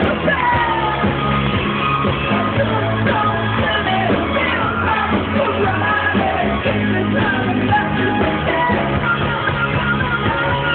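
Indie rock band playing live: electric guitar and synth keyboard over bass and drums, with vocals over the top.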